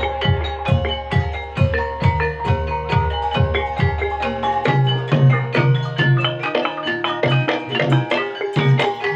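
Javanese ebeg accompaniment music: tuned gamelan-style percussion plays a repeating melody over regular drum strokes, about two and a half a second. About halfway through, the deep drum strokes stop and a higher drum pattern carries on.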